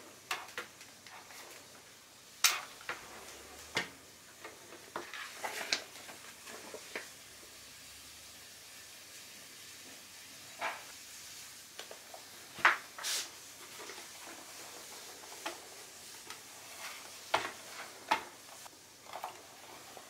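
Handling noises: scattered sharp clicks, taps and short rustles of hands working a plastic circulator fan and a paper instruction manual, the sharpest clicks about two and a half seconds in and again near thirteen seconds.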